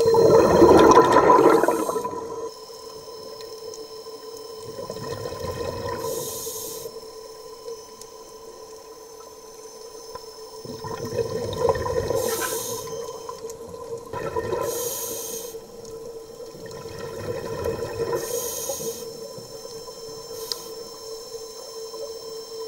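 Underwater, a twin-thruster diver propulsion scooter runs with a steady motor whine. Over it, a scuba diver's exhaled bubbles gurgle out of the regulator in surges every few seconds; the first surge, right at the start, is the loudest.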